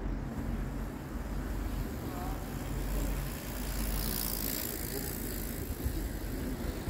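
City street ambience: a steady low rumble with faint voices, and a bicycle passing close by about four seconds in.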